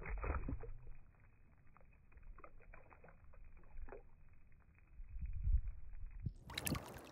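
A released sea bass splashing at the surface beside a boat, then water lapping and sloshing over a low rumble that swells about five seconds in. Near the end a brief, louder, fuller-sounding burst cuts in and stops abruptly.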